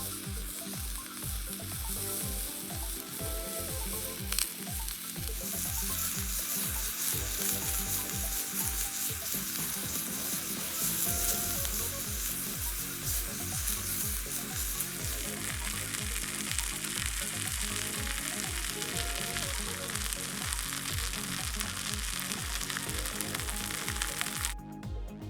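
Food sizzling as it fries in a pan, a steady hiss that stops suddenly near the end. Background music with a steady beat plays underneath.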